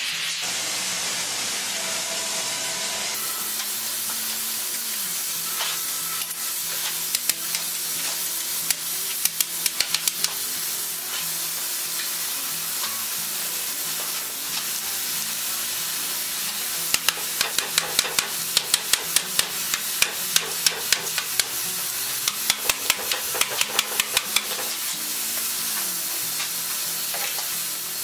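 Hiss of a gas torch heating steel tire channel in a roller bender, which gives way about three seconds in to a steady hiss. Over it come two spells of quick, sharp clicking and tapping as clamps are worked on steamed wooden felloes around a buggy wheel.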